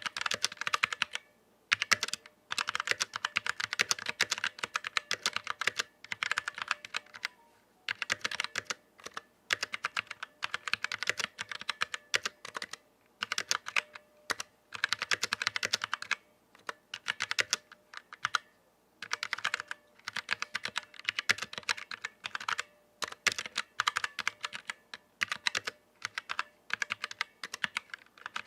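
Vortex Series VX7 mechanical keyboard with stock Outemu Brown tactile switches being typed on: fast runs of keystroke clacks broken by short pauses every second or two.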